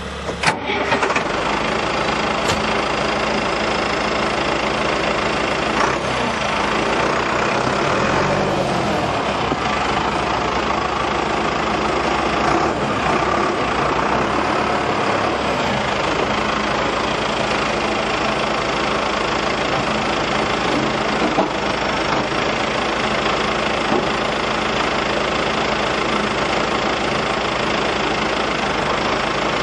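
Valtra 6400 tractor's Sisu 4.4-litre four-cylinder diesel engine running steadily.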